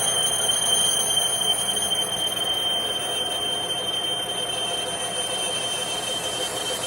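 A steady high-pitched squeal over a constant noise from workshop machinery, unchanging throughout.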